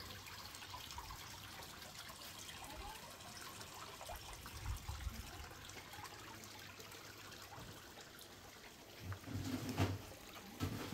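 Steady trickle of water from a koi pond, with a brief louder low sound about nine seconds in.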